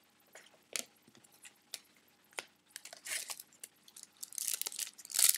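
Trading cards being handled, with scattered light clicks and taps, then the foil wrapper of a trading card pack crinkling in the hands. The crinkling grows loudest near the end.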